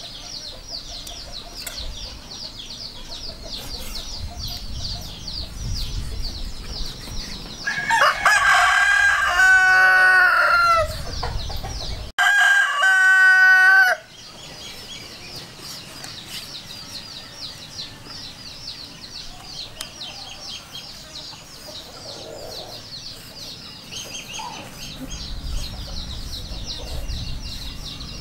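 A rooster crows loudly twice, about eight and twelve seconds in, the second crow cutting off abruptly, over a steady high-pitched chirring in the background.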